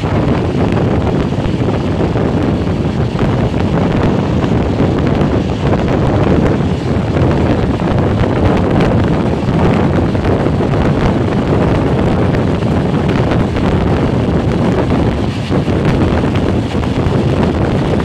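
Wind buffeting the microphone mixed with the steady rumble of a passenger train's coaches running on the rails at speed, recorded from inside the moving train's doorway.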